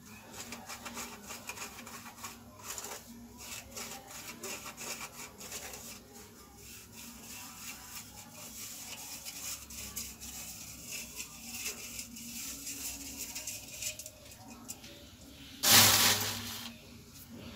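Maize flour rubbed through a stainless-steel mesh sieve by hand, a faint rapid dry scratching. Near the end, a short loud burst of noise.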